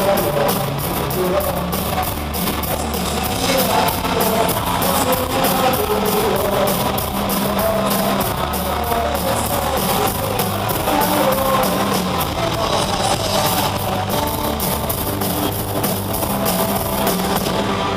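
Live rock band playing on a stadium stage: drums, electric guitars and bass at full volume, with a fast steady cymbal beat that drops out about two-thirds of the way through.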